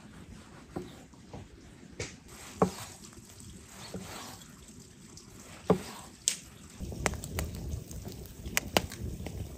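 Large cleaver-style knife slicing through ripe tomatoes, with a few sharp knocks of the blade on a wooden cutting board and wet, juicy cutting sounds. About seven seconds in, a wood fire takes over, crackling with a dense run of small pops.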